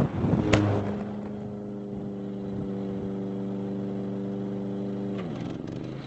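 Parrot Disco drone crashing into a lawn: a sharp impact about half a second in. It is followed by a steady motor hum that drops in pitch and fades near the end.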